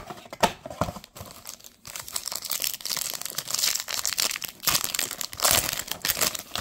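Foil trading-card pack being torn open by hand, its wrapper crinkling loudly as the cards are pulled out. A few light clicks of handling come first, and the crinkling runs from about two seconds in until near the end.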